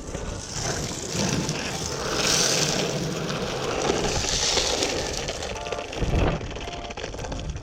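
Carver surfskate's wheels rolling on pavement, a steady rumble that swells twice as the board picks up speed, with no squeak from the freshly lubricated C7 trucks. A short thump comes about six seconds in.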